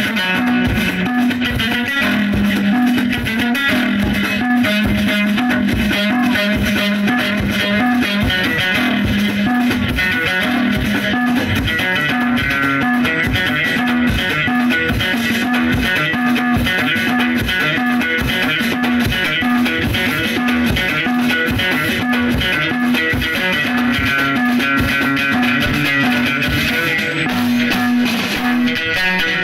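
Moroccan chaabi wtara music played live by an amplified band: several plucked loutars over frame drums and a drum kit keeping a steady beat.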